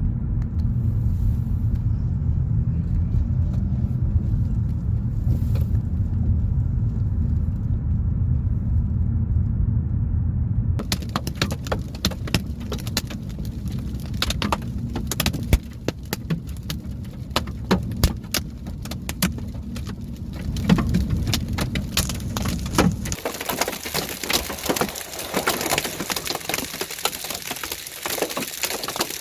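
Low steady rumble of a vehicle on the move. About a third of the way in, hailstones start hitting the vehicle as dense, irregular sharp clicks. Near the end the rumble drops away, leaving a steady hiss of hail and rain pelting down with many hard clicks.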